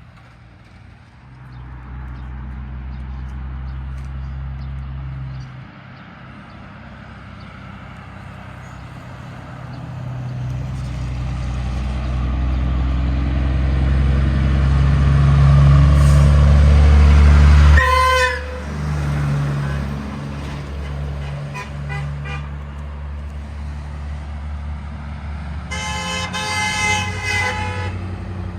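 Diesel locomotive rumbling louder as it comes on, with a short horn toot at its loudest point a little over halfway through. Near the end a multi-chime train air horn sounds a chord for about two seconds.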